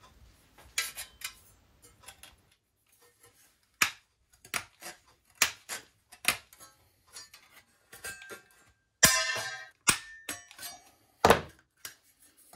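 Hand tin snips cutting 1.5 mm stainless steel sheet: a run of sharp, irregular snips, roughly two a second. About nine seconds in comes a longer metallic rattle with a ringing tone, and a loud single snip follows near the end.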